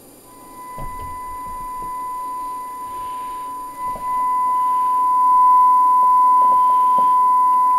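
A steady, high, pure test tone from a signal generator, received and played through a Cobra 29 NW LTD CB radio's speaker. It comes in just after the start and gets louder about four seconds in as the generator is tuned onto the channel. A few light clicks and knocks come from controls being handled.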